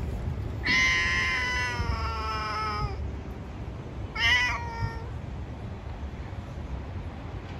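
A cat meowing twice: a long, drawn-out meow that falls slightly in pitch, then a shorter meow about four seconds in.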